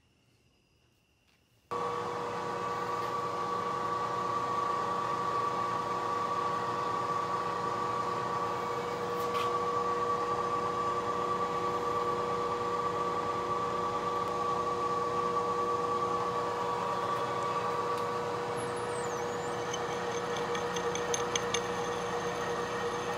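Bridgeport milling machine spindle running steadily, starting about two seconds in, while a drill bit cuts the bolt holes in a steel plate; faint fast ticking near the end.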